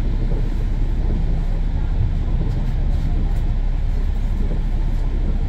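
Bus heard from inside while driving: a steady low engine drone mixed with road and tyre noise.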